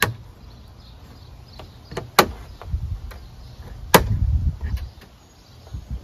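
Magnetic decorative hinge strap clacking onto a steel garage door panel as it is positioned and pressed on by hand. Three sharp clicks about two seconds apart, with low muffled thumps in between.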